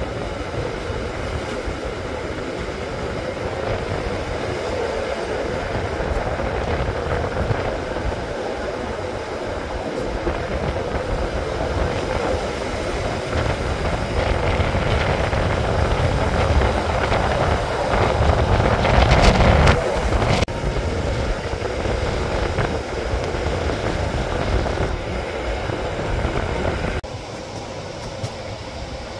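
Rhaetian Railway metre-gauge train running, heard from an open carriage window: a steady rumble of wheels on rails. It grows louder about two-thirds of the way in and eases off a little near the end.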